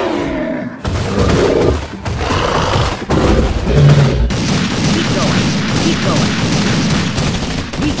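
Rapid machine-gun fire with explosions, added as sound effects. The loudest boom comes about four seconds in.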